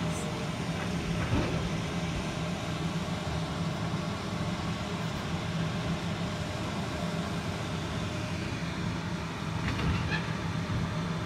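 Combine harvester running steadily in the field, a low, even mechanical drone.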